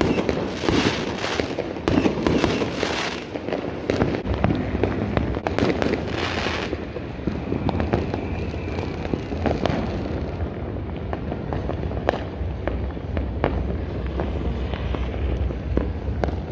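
Fireworks going off all around: a dense, continuous crackle and banging of firecrackers and aerial shells, thinning after about seven seconds to scattered sharp cracks and bangs.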